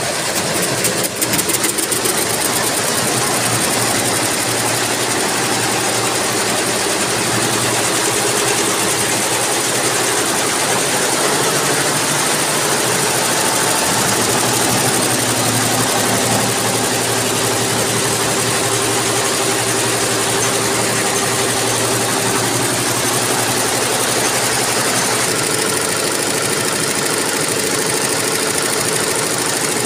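Multi-head computerised embroidery machine running, its rows of needle heads stitching a pattern into sari fabric with a steady, loud mechanical noise.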